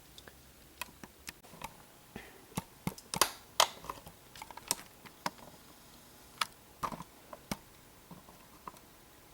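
ONN low-profile USB keyboard keys clicking under slow hunt-and-peck typing: single keystrokes at uneven intervals, some louder than others.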